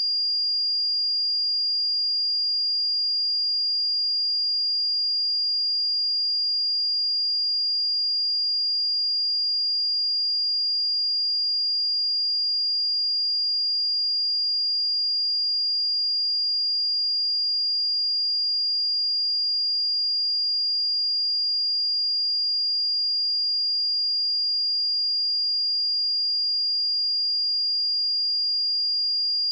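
A steady, unbroken pure sine-wave test tone at 4814 Hz, a single high-pitched whistle-like pitch held at constant level.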